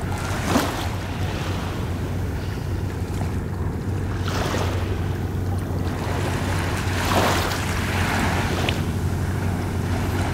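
Shallow surf washing at the shoreline with wind rumbling on the microphone, and three swells of rushing water noise that rise and fall.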